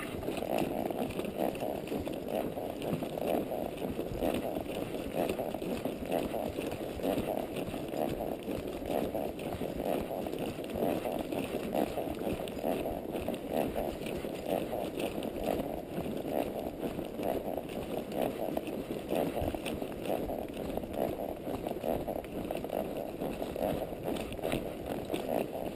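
A palomino quarter horse's hooves on a woodland dirt trail, a steady hurried walk, a continuous run of hoofbeats.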